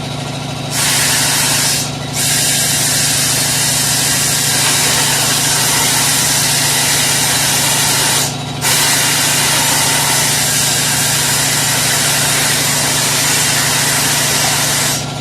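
Compressed air hissing loudly into a stretched tire on a tire changer while its bead has not yet sealed, in three long blasts with two short breaks. A steady low machine hum runs underneath.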